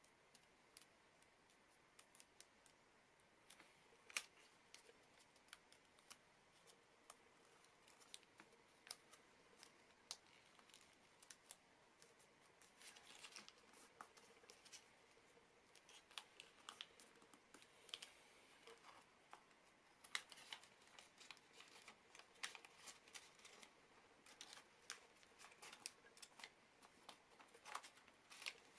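Origami paper being folded and creased by hand: scattered soft crinkles, clicks and taps of paper and fingertips, with a sharper snap about four seconds in.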